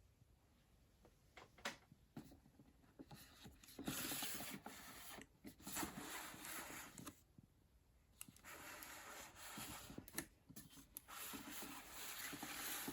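A boxed action figure being unpacked by hand: its box and plastic packaging rustle and scrape in three stretches, after a few sharp clicks in the first couple of seconds.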